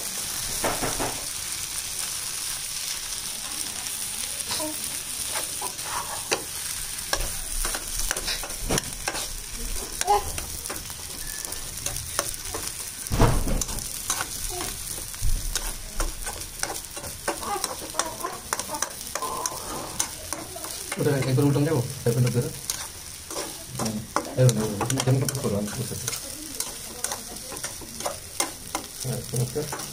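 Spatula stirring and pressing mashed potato bharta in a frying pan on the heat, with repeated scrapes and taps against the pan over a steady frying sizzle. The scraping gets heavier about two-thirds of the way through.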